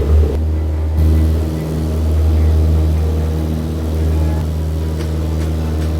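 Light aircraft's piston engine droning at a steady speed.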